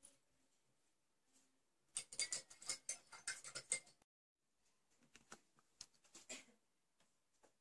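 Handling noise: a dense run of small clicks and scratches for about two seconds, cut off abruptly, then softer scattered clicks as a hand moves a plastic breadboard carrying a small circuit board.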